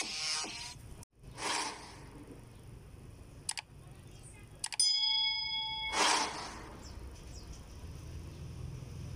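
Subscribe-button animation sound effects: a whoosh, two mouse clicks, then a bell ding that rings for about a second, followed by another whoosh.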